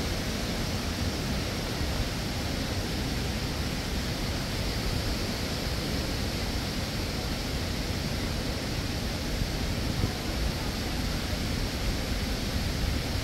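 A steady rushing noise with no distinct events, even in level throughout.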